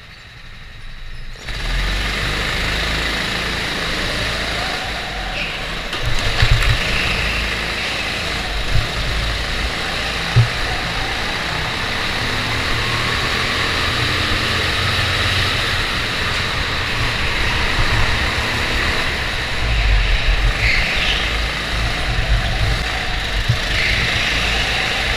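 Go-kart engines pulling away from a standing start about a second and a half in, then running hard at track speed, the engine note rising and falling through the corners. A few sharp knocks come in among it.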